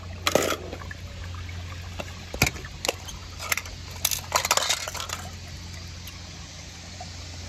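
Water splashing and dripping as small die-cast metal toy cars are handled in a plastic bowl of water and a wet plastic cup is lifted off, with a series of short clicks and clatters in the first five seconds. A steady low hum runs underneath.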